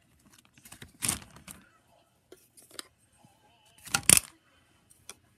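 Toys being handled: two short clattering rattles, about a second in and again near four seconds in, with a few faint clicks.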